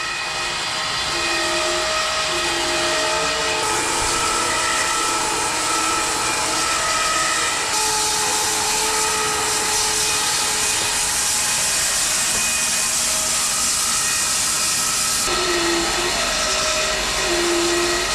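Home-built bandsaw mill's blade sawing through a maple log: a steady hiss with a few held whining tones over it.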